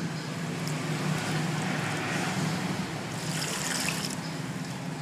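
Water poured from a steel bowl into an aluminium basin of grated coconut, splashing for about a second near the end, after a stretch of hands squishing the wet coconut. This is water being added to grated coconut to press out coconut milk.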